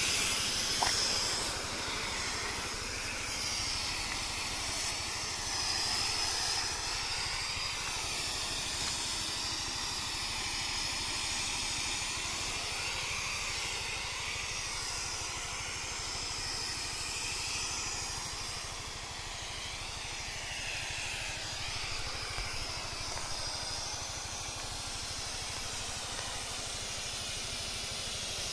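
High-pressure spray gun hissing steadily as it throws a fine chemical mist, over the low, steady running of the HTP sprayer pump's 5 hp diesel engine.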